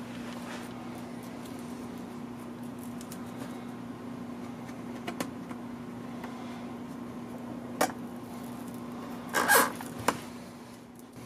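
Steady low hum with a few light clicks, and a brief rustle near the end, from hands working at the edge of an iMac's aluminium housing, peeling off the old display adhesive strip.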